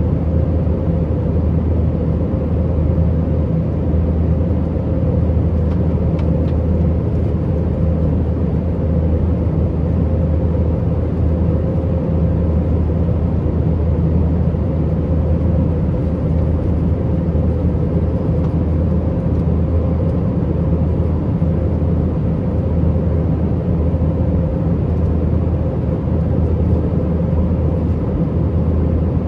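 Steady cabin noise inside an Airbus A320-232 in flight: the low rumble and drone of its IAE V2500 engines mixed with air rushing past the fuselage, with a faint constant hum and no change in level.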